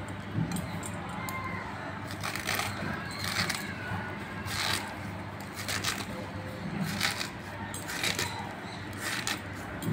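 Ash gourd being sliced against a fixed boti blade, a crisp cutting stroke about once a second, over a steady low hum.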